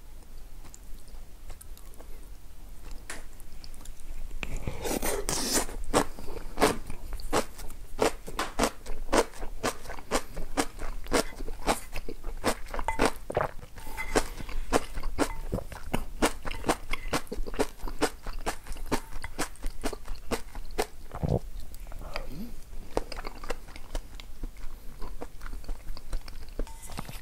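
A person chewing food, with a quick run of crisp crunches starting about five seconds in that thins out later.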